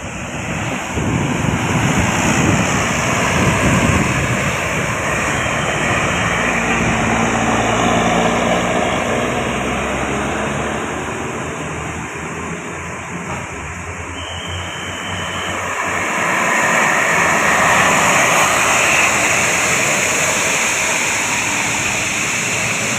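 Road traffic passing close by: large vehicles such as buses going by with a dense rush of engine and tyre noise that swells about three seconds in, eases off midway, and swells again near the end.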